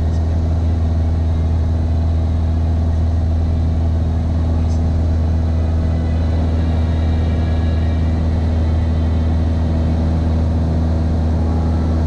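Cessna 172's piston engine and propeller droning steadily in cruise flight, heard inside the cabin.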